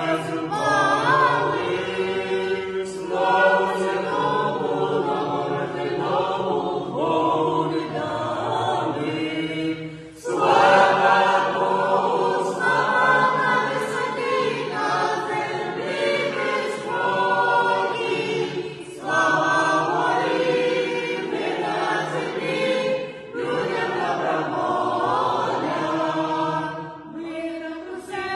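A small group of parishioners, men's and women's voices together, singing a Ukrainian Christmas carol (koliadka) unaccompanied. The singing goes phrase by phrase, with short breaks for breath between lines.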